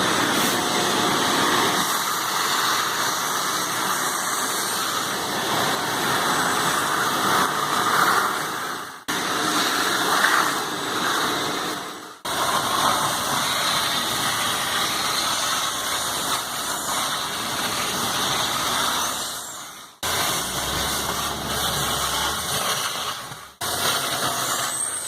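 Shop vac running, sucking up Kydex plastic chips from a CNC mill. The steady noise breaks off abruptly and resumes about four times.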